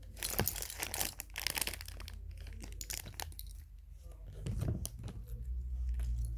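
Plastic bags of Lego pieces being torn open and crinkled in the hands, a dense irregular crackle that is thickest in the first few seconds.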